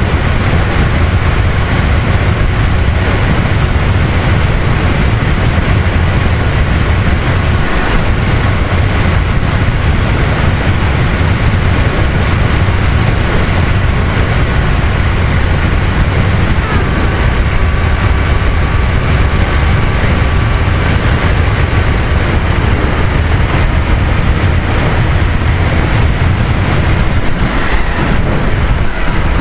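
Wind rushing over the onboard microphone of a Multiplex Easystar RC plane in flight, with the faint steady whine of its electric pusher motor underneath. The whine drops slightly in pitch about halfway through.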